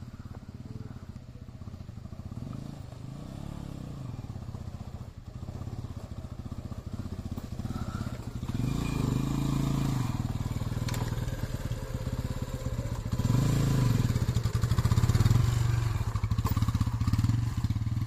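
Motorcycle engine running under load, its revs rising and falling several times, getting louder through the second half.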